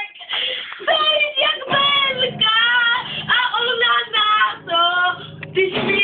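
A child singing a song in a high voice, phrase after phrase with short breaks between them.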